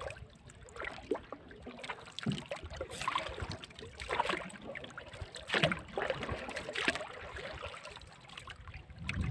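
Water splashing and lapping against a small outrigger fishing boat, with a splash every second or so.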